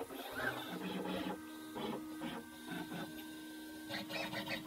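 CNC router's stepper motors whining through about six short moves, each rising and falling in pitch, as the spindle is jogged into position; a steady hum runs underneath.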